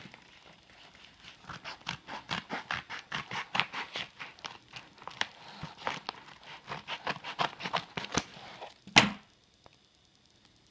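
Scissors cutting open a padded paper mailer: a quick run of short snips with crinkling paper, then a single sharp knock near the end.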